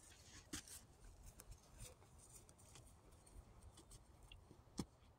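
Near silence with faint, irregular footsteps on dry grass and sand, moving away, and one sharper click near the end.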